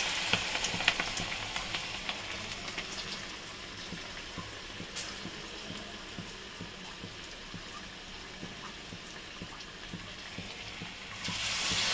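Battered green chillies deep-frying in hot oil in a kadai: a steady sizzling hiss with small crackling pops. The sizzle is louder for the first few seconds, drops lower through the middle, and rises again near the end.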